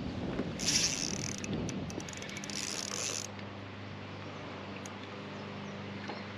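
Spinning reel being cranked: two whirring bursts with rapid clicks between them in the first three seconds. After that a steady low mechanical hum carries on.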